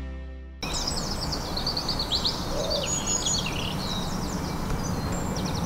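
A guitar chord rings out and cuts off about half a second in. Then several small birds chirp and trill in quick, overlapping runs over a steady low background rumble.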